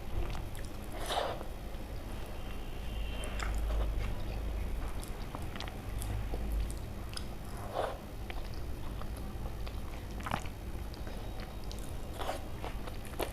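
Close-up eating sounds: a person chewing mouthfuls of food, with scattered mouth clicks and a few louder crunches or snaps spread through.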